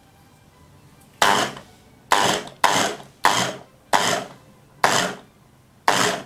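Starwind electric food chopper pulsed seven times, starting about a second in: short bursts of motor and blades, each cutting in sharply and dying away. It is coarse-chopping boiled soup vegetables so that pieces are left rather than a purée.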